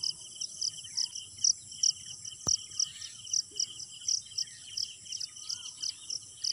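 Crickets chirping in a steady, even rhythm of about three pulses a second, over a continuous high trill, with a few bird chirps now and then. A single sharp click about two and a half seconds in.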